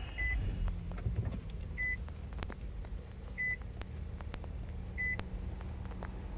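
Car's warning chime beeping four times, evenly about every second and a half, over a steady low hum and a few light clicks.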